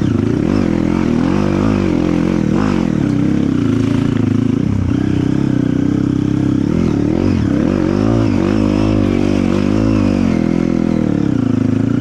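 Dirt bike engine running under load, its revs rising and falling again and again as the throttle is worked.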